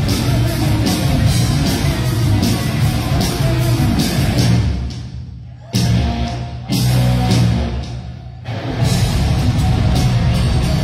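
Neoclassical heavy metal band playing loud, with distorted electric guitar through Marshall stacks over drums. About halfway through the sound dies away twice, and each time the band crashes back in together.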